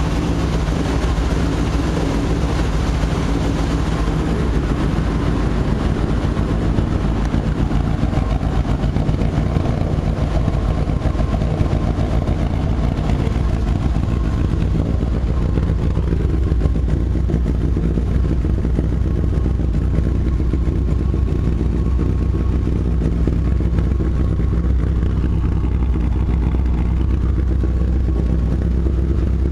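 1976 BMW 2002's four-cylinder engine idling steadily on its automatic choke, warming up just after a cold start.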